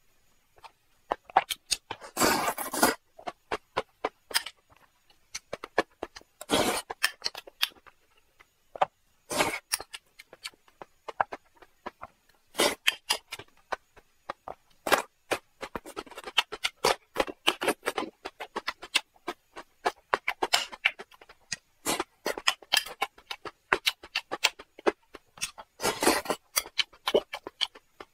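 Close-miked eating sounds: wet chewing and mouth clicks as a man eats a spicy rice dish, with irregular bursts from big spoonfuls and bites and the scrape of a metal spoon against the bowl.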